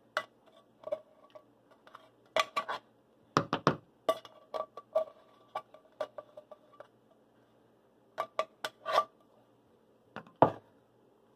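Cutlery clinking and knocking against a bowl in irregular taps, some strikes leaving a short ring, with a quick cluster of clinks a few seconds in and again near the end.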